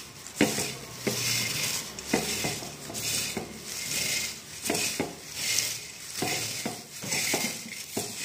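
Crisp fried gram-flour sev and fried curry leaves being crushed and tossed by hand in a metal plate. It is a rhythmic crunchy rustle in repeated strokes, a little faster than one a second, with light scrapes against the plate.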